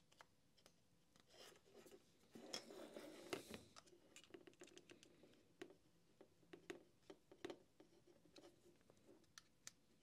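Faint scraping and small clicks of a screwdriver tip prying at the plastic snap latches of a Makita cordless heat gun's motor housing, to release the motor. A longer scraping rustle comes about two and a half seconds in.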